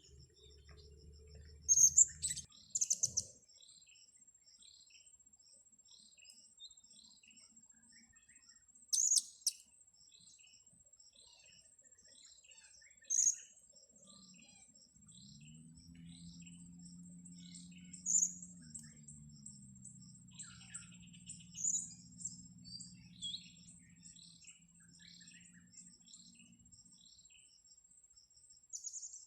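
Blue-crowned hanging parrots (serindit) giving sharp, high-pitched chirps every few seconds, over a stream of softer repeated tweets and a steady high insect whine. A low droning hum comes in about halfway, dips slightly in pitch and fades out near the end.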